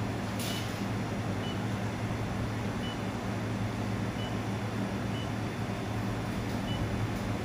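Steady machine hum with a low mains-type drone and fan noise from the handheld fiber laser welding machine and its cooling running at idle. Faint short high beeps come about once a second.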